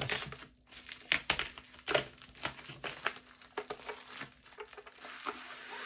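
Plastic bubble wrap crinkling as hands unwrap it, with irregular sharp crackles.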